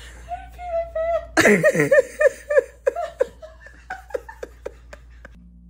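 A person laughing: a high held vocal sound, then a loud burst of laughter about a second and a half in that trails off in a string of short ha-like pulses.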